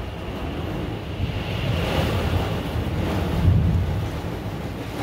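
Storm wind gusting and heavy rain lashing a fifth-wheel camper, heard from inside. A deep rumble of wind swells through the middle and eases near the end.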